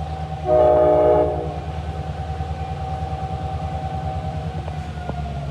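EMD GP38 diesel locomotive's two-stroke V16 engine running with a steady, rhythmic throb, and a short, loud air-horn blast about half a second in that lasts under a second. A steady whine carries on above the engine, slowly dropping in pitch.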